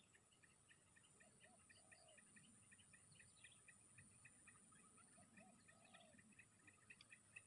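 Faint bird and insect calls: a steady high-pitched insect drone, rapid repeated chirping, and a low two-part bird call that comes back every few seconds.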